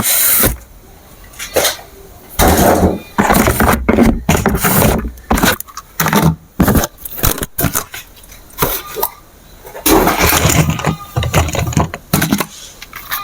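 Toy remote-control racing car running in repeated short bursts of a second or so, stopping and starting.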